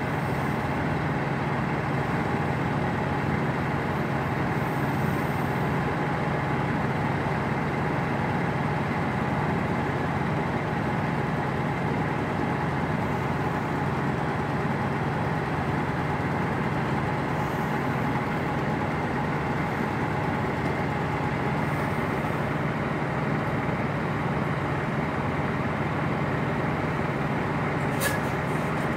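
Semi-truck diesel engine running steadily at idle while the tractor-trailer backs slowly, with a couple of brief clicks near the end.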